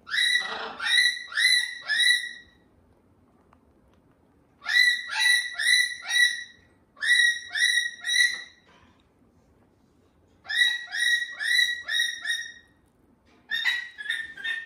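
White cockatoo calling in five bursts of four or five short, clipped, pitched notes each, with pauses of a second or two between the bursts.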